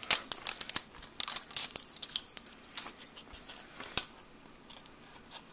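Plastic wrapper sleeve on a Mash'ems toy capsule crinkling and tearing as fingers pick at its pull edge, in a quick run of sharp crackles for about three seconds, then a single click about four seconds in.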